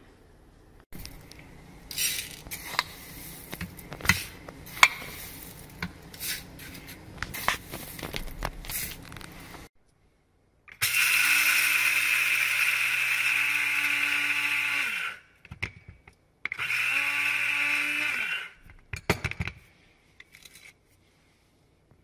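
Black & Decker CBG100SC electric blade grinder grinding coriander and sesame seeds on a second pass to get them finer. It runs for about four seconds, then again for about two seconds, each time a steady motor whine with the seeds whirling in the cup, winding down when the button is let go. Before the grinding there are several seconds of rustling and clicking handling sounds.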